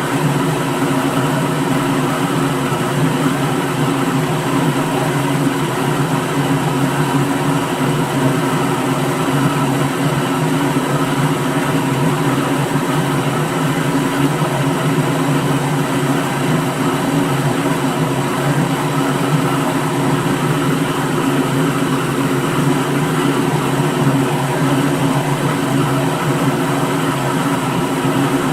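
Electric kitchen blender motor running continuously at one speed: a steady, even hum with no change in pitch or loudness.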